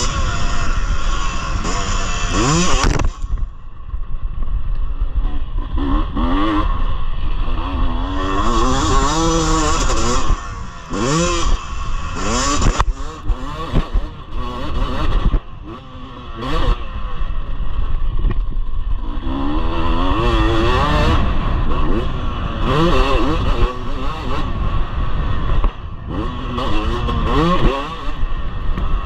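Husqvarna TC250 two-stroke single-cylinder motocross engine under hard riding, the revs climbing and falling again and again as the rider opens and closes the throttle; several times it drops off sharply before pulling again. Clattering knocks from the bike over the rough dirt run alongside.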